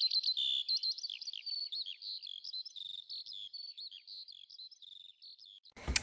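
Small songbirds singing, a rapid twittering stream of short high chirps that slowly grows quieter and breaks off abruptly near the end.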